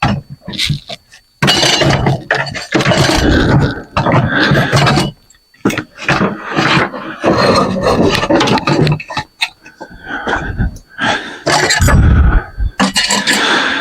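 Loud, irregular clattering, clinking and scraping of metal ceiling-fan parts and tools being handled and rummaged through, with many sharp knocks.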